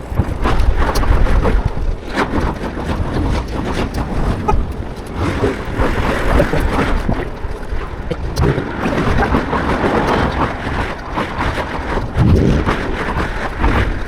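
Wind buffeting the microphone while riding in traffic, with road noise underneath: an uneven rushing noise that rises and falls, heaviest in the low end.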